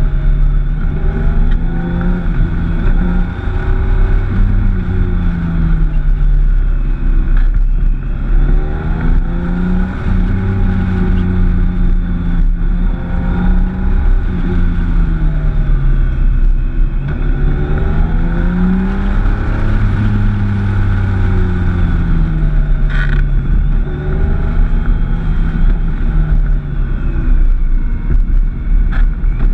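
Motorcycle engine heard from an onboard camera, its revs rising and falling several times as the throttle opens and closes, over a steady low rumble of wind on the microphone.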